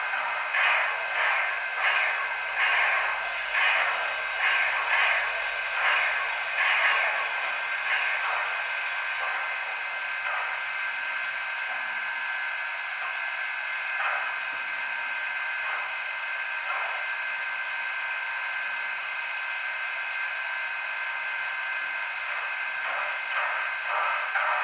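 LokSound V5 sound decoder in an HO-scale steam locomotive model playing steam sounds through its small speakers. Rhythmic steam pulses come about one and a half a second, then give way to a steady hiss with a few single puffs. The pulses return near the end.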